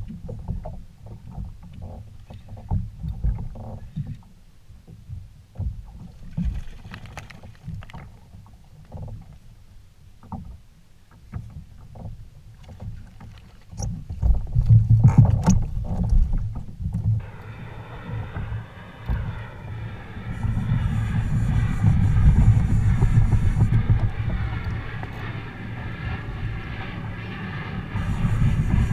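Water slapping and sloshing against a kayak hull, with low wind rumble on the microphone and scattered small knocks. About two-thirds of the way through, background music comes in and carries on to the end.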